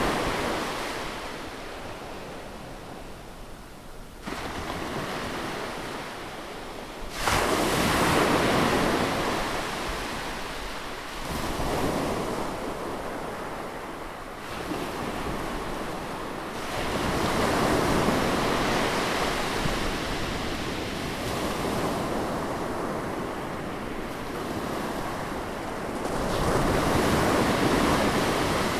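Sea waves breaking close by on the shore, the surf swelling and washing back every few seconds, with one wave crashing in suddenly about seven seconds in.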